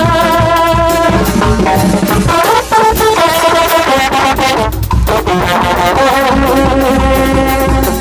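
Mexican banda music: trumpets and trombones play the melody in sustained notes over a low bass line and drums.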